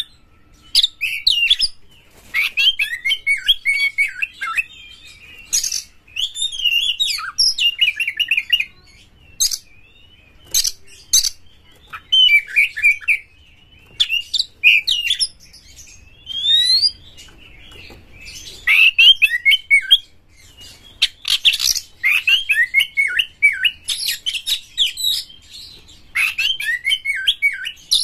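Caged Oriental magpie-robin singing a loud, varied song in quick phrases of a second or two, with short pauses between them. The high, rapid notes sweep up and down. It is the energetic, aggressive full song that keepers call gacor.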